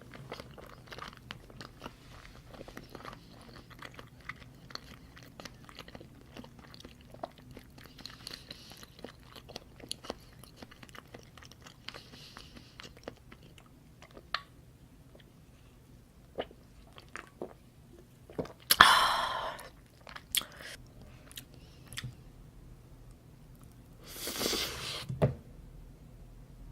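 Close-miked chewing of salmon sashimi and salmon rolls: many small wet mouth clicks throughout. Two louder rushing noises, about a second long, come at roughly two thirds of the way through and again near the end.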